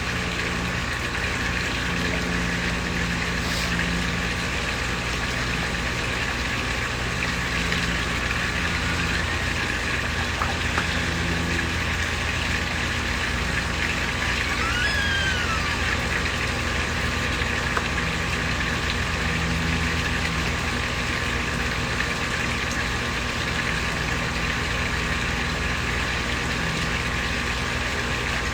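Small koi-pond waterfall splashing steadily into the pond, with a steady low hum underneath. A brief higher chirp sounds about halfway through.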